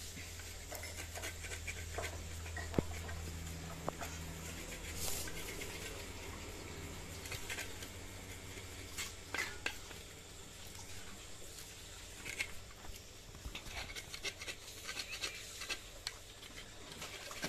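Knife blade scraping the leftover fibre and skin off a husked coconut's shell, in short, irregular scrapes and light knocks.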